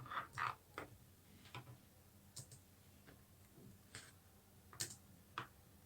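Faint, irregular computer keyboard keystrokes: a handful of single clicks spread over several seconds as a line of code is typed.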